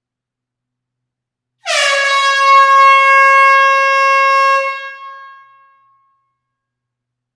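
Air horn sounding one blast of about three seconds, starting about a second and a half in, with a quick slide down in pitch at the onset and then a steady tone. It echoes in an enclosed hall and dies away over about a second and a half after the horn stops.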